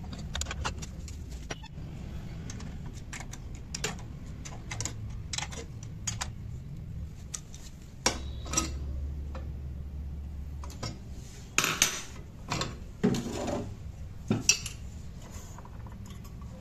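Metal hand tools clinking and clicking against the scooter's CVT pulley nuts and a steel C-clamp as the nuts are tightened. There are scattered light clicks at first and a cluster of sharper clinks in the second half.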